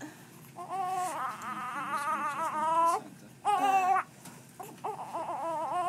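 Newborn baby crying in high, wavering cries. A long cry of about two seconds comes first, then a short, louder cry about three and a half seconds in, then softer fussing cries toward the end.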